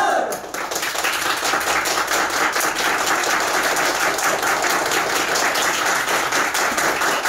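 A group of people applauding, many hands clapping at once, starting just after the end of a crowd shout.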